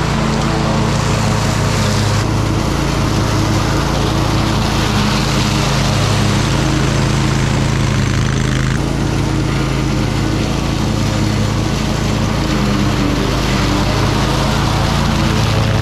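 Toro Titan Max zero-turn lawn mower's engine running steadily while mowing, a constant drone with a hiss of the cutting over it that shifts slightly about nine seconds in.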